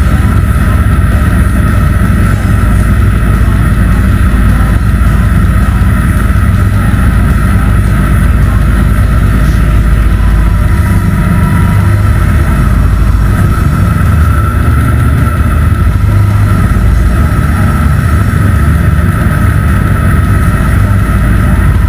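DN ice yacht sailing fast over bare lake ice: a loud, steady rumble of wind on the microphone and the runners sliding on the ice, with a thin steady whine above it.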